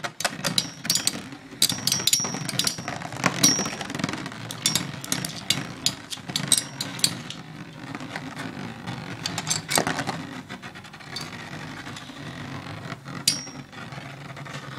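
Two Beyblade spinning tops, Storm Pegasus and Sagittario, whirring with a steady rattle as they spin on a plastic stadium floor, with sharp clacks as they collide and glance off the stadium walls. The clacks come thick and fast for the first few seconds, then only now and then.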